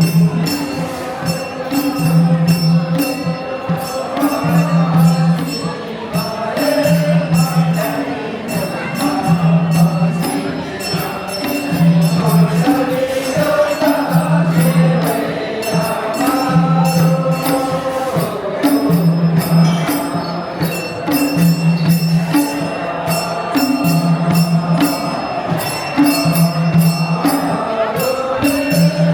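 Traditional Gurung folk music for a dance: a sung melody over a repeating low beat that comes round about every two and a half seconds, with steady jingling or clicking percussion on top.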